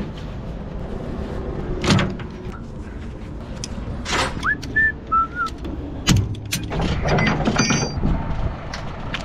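Knocks and clanks over a low steady engine hum, with a person whistling a few short notes about halfway through.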